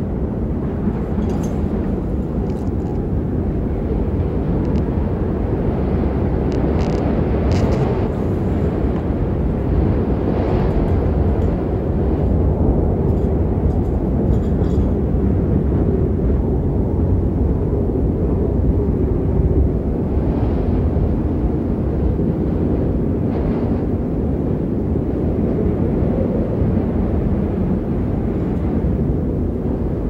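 Strong wind blowing across the microphone, a steady low roar that swells and eases slightly.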